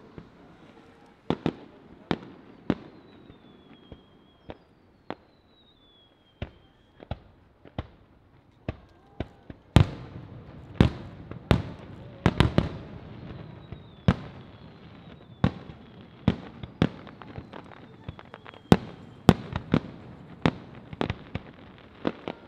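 Aerial firework shells bursting in a series of sharp bangs, spaced out at first and coming thick and fast from about ten seconds in. Several high whistles glide down in pitch between the bursts.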